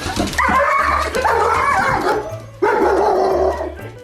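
A dog whining and yelping in two long cries that waver in pitch, the second beginning about two and a half seconds in.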